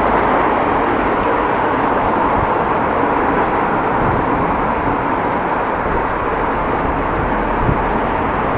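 Steady rushing wind and road noise from riding a bicycle, picked up by a camera worn by the rider. Faint short high chirps come through now and then.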